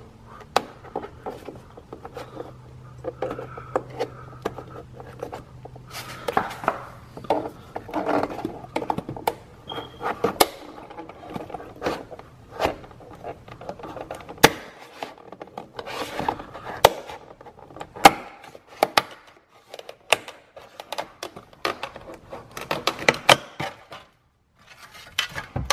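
Plastic interior trim cover of a BMW E90 being pried and handled with a trim tool: irregular sharp clicks and knocks, with scraping and rubbing in between, as the cover and its clips are worked loose and fitted.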